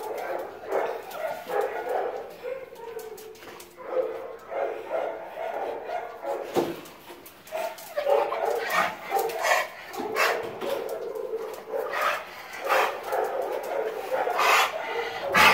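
Dogs whining and barking, in many short repeated calls.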